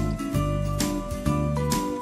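Background music with a steady beat, about two notes a second over a bass line.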